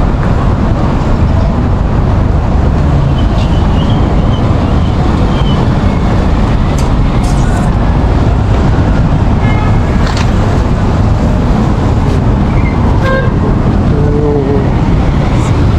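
Steady street traffic noise with a few short horn toots.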